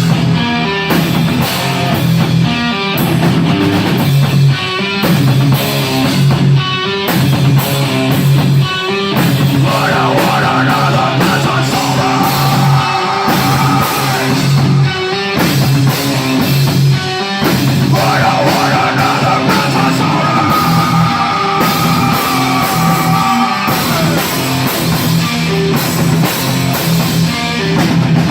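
Rock band playing live, with electric guitar and drum kit.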